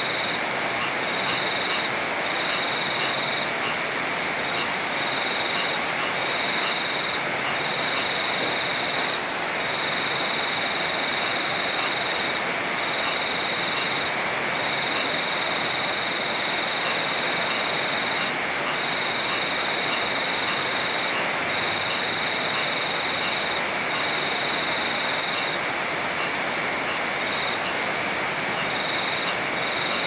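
Heavy rain falling steadily over a rushing river, an even, unbroken wash of water noise. Over it, a high-pitched trill keeps cutting in and out, each burst lasting from a fraction of a second to a few seconds, with faint regular ticks just below it.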